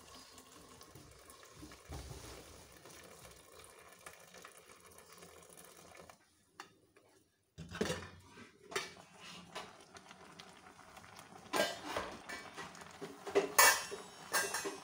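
Stainless steel pot and lid clinking and clanking as boiled matooke (green bananas) is drained of its cooking water and the pot is set back on the stove. Water runs out faintly at first, and a run of sharp metal clanks fills the second half, loudest near the end.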